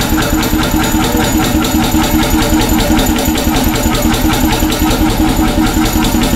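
Single-cylinder hot bulb engine, a century old, running steadily with an even, regular beat.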